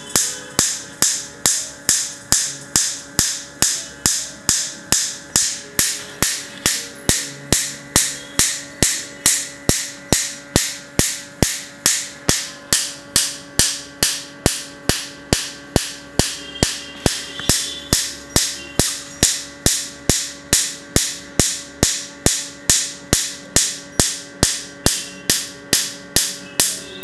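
Tattoo-removal laser firing into a forearm tattoo: a sharp snap with every pulse as it strikes the ink, repeating evenly at about two a second over a steady hum.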